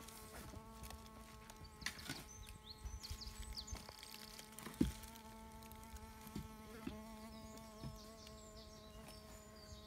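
Faint, steady buzz of a hovering bee fly (Bombylius major), its pitch shifting slightly about seven seconds in, with a few short clicks, the sharpest about halfway through.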